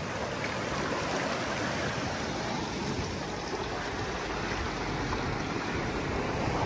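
Swollen river in flood rushing through under a road bridge: a steady, turbulent rush of fast water.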